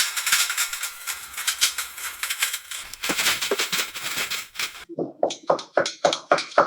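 Dishwasher running: a dense hissing, pattering spray of water against the racks and dishes. About five seconds in it changes abruptly to a rhythmic swishing, about three swishes a second.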